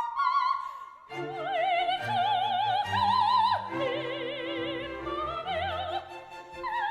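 Operatic classical music: a melody of long held notes with wide vibrato over sustained orchestral accompaniment, entering after a brief dip about a second in.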